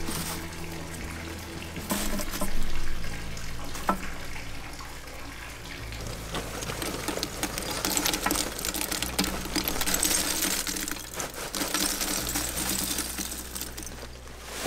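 Wooden smoking chunks knocking down onto lump charcoal a few times, then several seconds of crackling and hissing from the charcoal, over soft background music.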